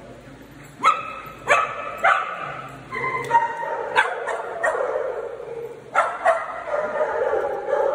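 Small dogs barking, about eight sharp, high yipping barks at irregular intervals, with brief whines between them.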